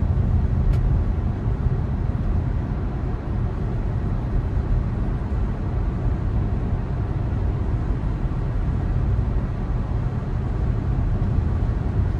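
Steady road and tyre noise heard inside the cabin of a 2020 Tesla Model 3 Performance, an electric car, as it drives along.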